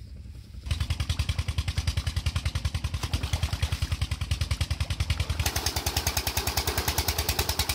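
Single-cylinder Chinese 16 hp 'Peter'-type diesel engine driving a tube-well pump, running with a steady thumping beat of about eight a second that cuts in about a second in. From about five seconds in, a louder rush of water pouring from the pump's outlet pipe joins it.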